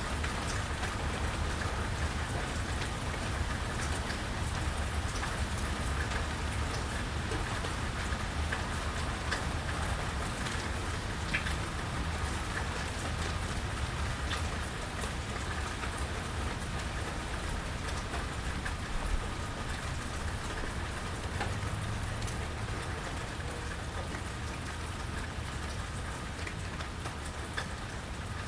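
Steady rain falling on a porch, with many scattered drops tapping close by and a low steady rumble underneath.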